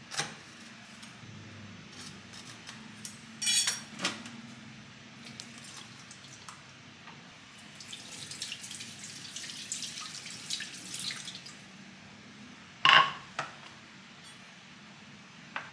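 Kitchen food-prep sounds: a knife slitting the plastic film of a tofu pack, with a short crinkly burst, then a kitchen tap running over the tofu block for a few seconds. A loud sharp knock comes near the end, as a wooden cutting board is set down on the stone counter.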